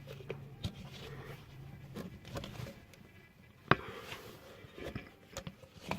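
Honda Accord 8 steering rack knocking in its worn rack bushing as it is rocked by hand: a few irregular light knocks, with one sharp, louder knock a little past halfway.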